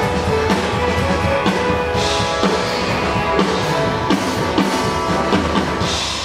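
Live band playing pop-rock music, with guitar over a steady drum-kit beat.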